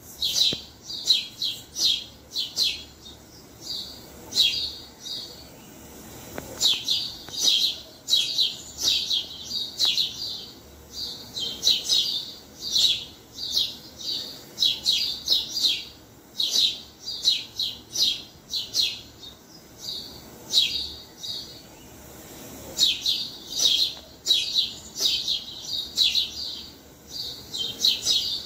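Several sparrows chirping in quick, overlapping runs of short, sharp chirps, broken by a few brief pauses.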